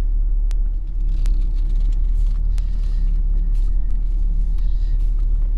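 Car on the move heard from inside the cabin: a steady low rumble of road and engine noise.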